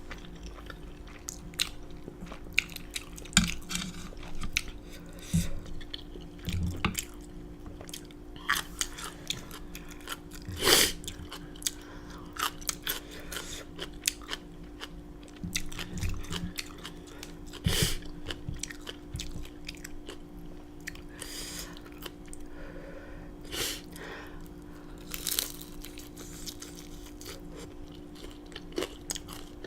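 A person eating spicy black bean noodles and fried dumplings close to the microphone: chewing and biting, with irregular short crunches every second or two.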